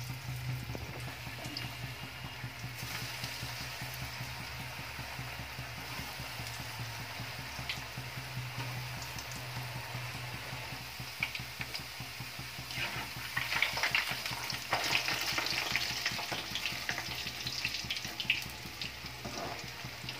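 Potato sticks deep-frying in hot oil in a steel kadai: a steady bubbling sizzle that swells louder about two-thirds of the way through, with a few light clicks.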